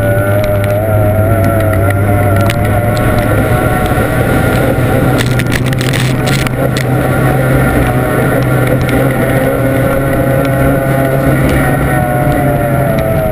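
Formula 1 racing powerboat's outboard engine running flat out at steady high revs, its pitch wavering slightly as the boat skims the water, with a noisy rush of wind and water about halfway through.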